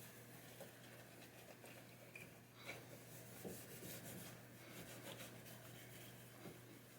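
Faint rubbing of a wax pad across a pinball playfield, with a few light scrapes and ticks.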